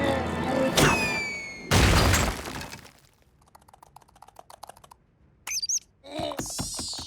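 Cartoon sound effects: a sharp hit with a quickly falling whistle-like tone, then a loud crash that dies away over about a second. Near the end come a short high warbling chirp and a brief pitched squawk.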